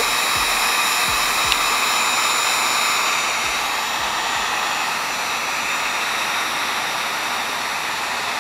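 Heat gun blowing hot air with a steady rushing whoosh, slightly quieter from about three seconds in. It is heating a chrome-wrapped plastic grille to soften the chrome layer so it can be peeled off.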